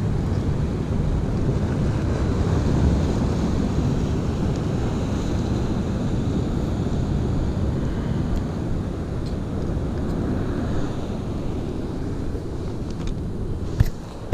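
Wind buffeting the microphone over the steady wash of sea waves against a concrete sea wall, with a single sharp knock near the end.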